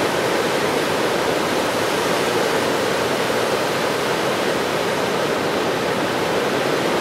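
Ocean surf breaking, heard as a steady, even rush of water.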